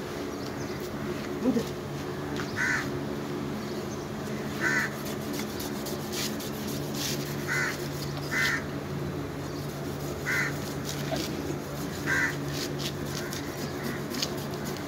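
Crows cawing, single short caws about every two seconds, over a steady low hum.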